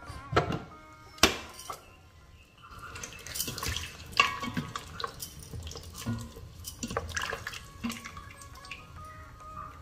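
Cooked mutton chunks being stirred in broth with a plastic ladle in a stainless steel pressure-cooker pot: wet sloshing with light clicks and knocks against the pot. A couple of sharp knocks near the start as the pressure cooker lid is handled.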